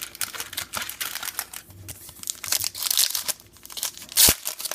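Plastic trading-card pack wrapper crinkling and tearing as it is opened, a fast run of crackles with the loudest one near the end.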